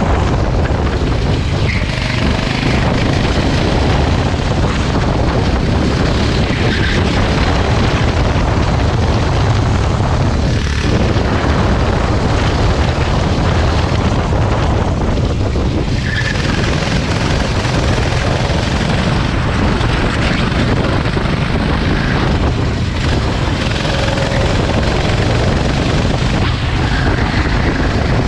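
Racing kart running on track, a steady engine drone under heavy low rumble from wind on the microphone.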